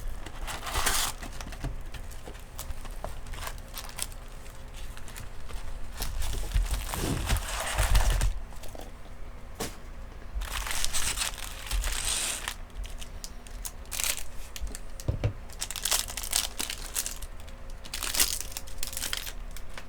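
Crinkling and tearing of a foil trading-card pack wrapper being opened by hand, in several bursts with light clicks and taps between.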